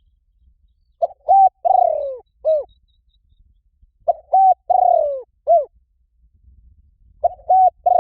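Spotted dove cooing: phrases of four or five notes repeated about every three seconds, twice in full, with a third phrase starting near the end.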